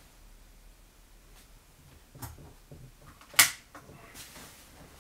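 A few small, scattered knocks and one sharp click about three and a half seconds in.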